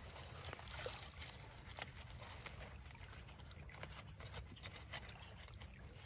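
Faint water lapping at a shell-covered shoreline over a low steady rumble, with scattered light clicks and rustles of gear being handled.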